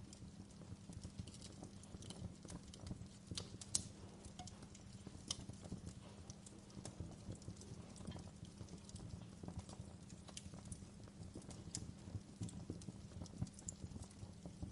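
Campfire crackling: burning wood giving off irregular sharp pops and snaps over a low steady rumble, the sharpest pop about four seconds in.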